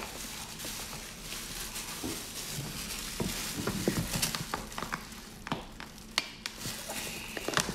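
Plastic-gloved hands gripping and pulling apart a large boiled lobster: gloves crinkling and shell creaking, with scattered sharp clicks and cracks, more of them in the second half.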